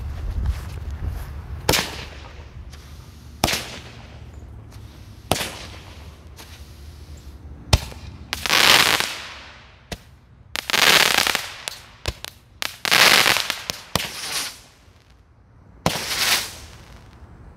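RGS 'A Little of Everything' consumer firework cake going off: a few sharp single shots about two seconds apart, then several longer noisy bursts of about a second each.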